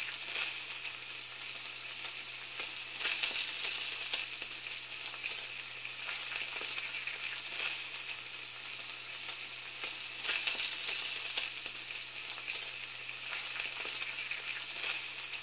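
Food sizzling in a hot pan: a steady crackling hiss with irregular pops.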